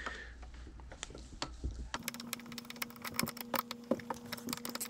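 Light clicks and taps of metal on metal as a small alternator's aluminium housing is handled and worked on with a screwdriver. A faint steady hum comes in about two seconds in.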